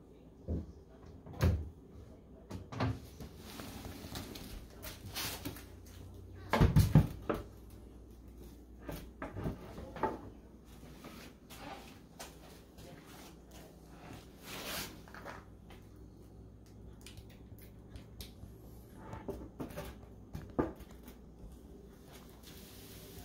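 Wooden cabinet doors with concealed cup hinges being handled: a series of separate knocks and clicks of wood and hinge metal, the loudest a quick cluster of knocks about seven seconds in.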